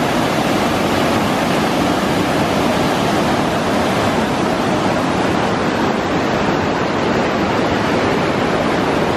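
Loud, steady rushing of white-water rapids and falls pouring over rock.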